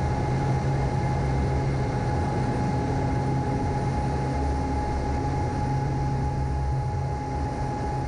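Cockpit sound of a CT-156 Harvard II trainer in flight: the steady drone of its turboprop engine and propeller, a constant whine held above it, and rushing air noise.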